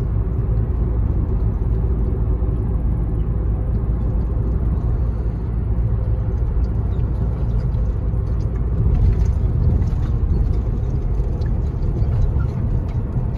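Road and engine noise heard inside a moving car's cabin: a steady low rumble, swelling slightly about two-thirds of the way through.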